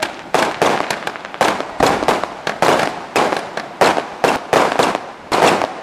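Fireworks display: a rapid, uneven string of aerial shell bursts, several sharp bangs a second, each trailing off briefly.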